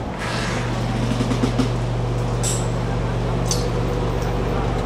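Small passenger ferry's engine running with a steady low drone, with a couple of brief hissing sounds over it about the middle.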